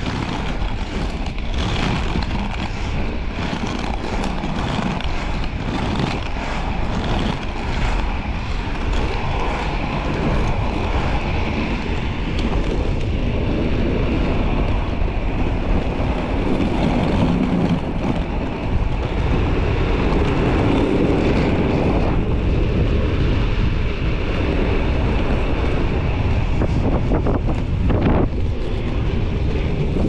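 Wind buffeting the microphone over the steady rumble of inline skate wheels rolling on rough, cracked asphalt.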